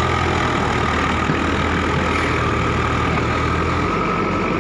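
Tractor's diesel engine running steadily at an even speed, a low hum with a steady whine above it.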